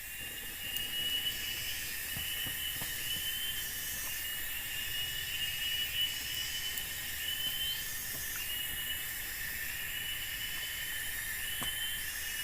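Forest insect chorus: a steady high drone with repeated chirring phrases, each about a second long, sounding over it.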